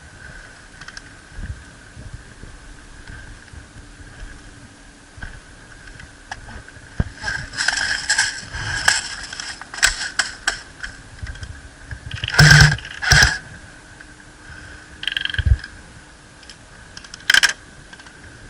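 Airsoft guns firing in short rapid bursts and single shots: clusters of sharp clicking cracks that begin about a third of the way in and are loudest a little past the middle. A faint steady high tone runs underneath.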